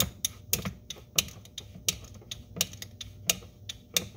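Hand-operated bottle pump clicking with each stroke as it pumps gear oil through a hose into a manual transaxle: a sharp click about every two-thirds of a second, with fainter clicks between.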